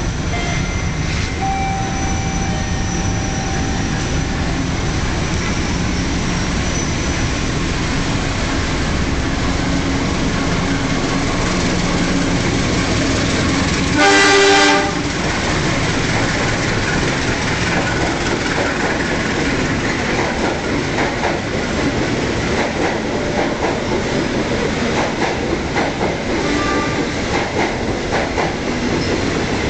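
Diesel-electric locomotive and passenger coaches running through a station. A steady rumble builds as the train approaches, then one loud horn blast of about a second sounds as the locomotive passes, about halfway through. After that the coaches roll by with a rhythmic clickety-clack of wheels over rail joints.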